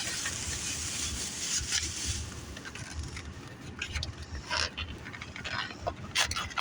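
Rustling of takeout food packaging being opened and handled, followed by scattered clicks and scrapes.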